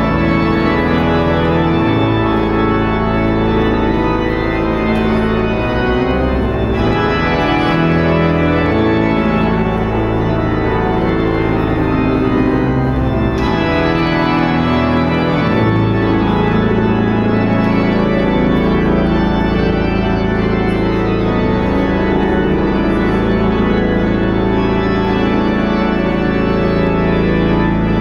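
Pipe organ playing sustained chords over a deep pedal bass. The tone brightens about seven seconds in and changes again near thirteen seconds, and through the second half a long low note is held under the moving upper parts.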